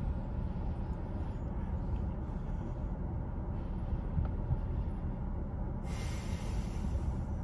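Steady low rumble of a running car. A faint hiss joins it about six seconds in.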